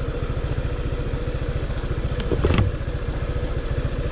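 Motorcycle engine running steadily at low speed on a rough stony dirt track, with a brief clattering knock a little past halfway through.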